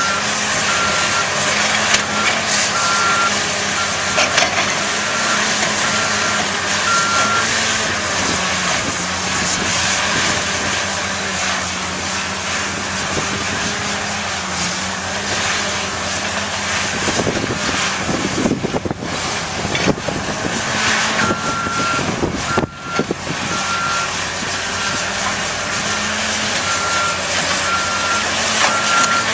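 Heavy diesel construction machinery running steadily, with a backup alarm beeping in an even series for the first several seconds and again through the last third.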